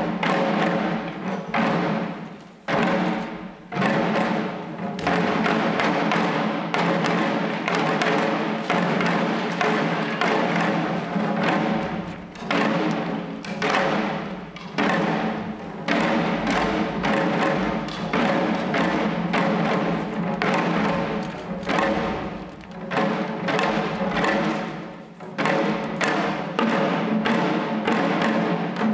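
Shishi-odori deer dancers beating the small drums slung at their chests, a run of sharp strikes broken by a few brief pauses, over a steady pitched drone.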